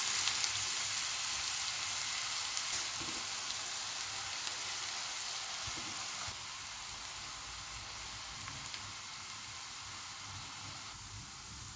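Sliced onions sizzling in hot oil, a steady frying hiss that grows gradually fainter, with a few light scrapes of a wooden spatula stirring them near the start. This is the first stage of frying the onions toward golden brown.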